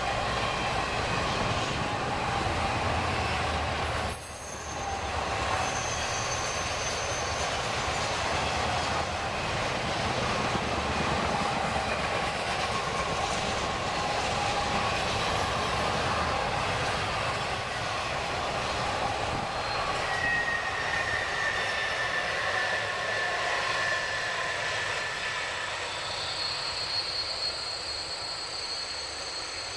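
Intermodal freight train's flatcars loaded with semi-trailers rolling past on a curve, with steady wheel-on-rail rumble and clatter. Several high flange squeals come and go as the wheels grind against the curved rail. The sound fades near the end as the train moves away.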